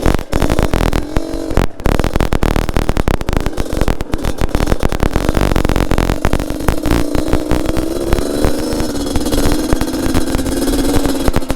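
Yamaha RX-King 135 cc two-stroke single engine in a DT trail bike, running under load on a rocky trail, its pitch climbing gradually over the second half. A dense, constant crackle of short knocks runs under it.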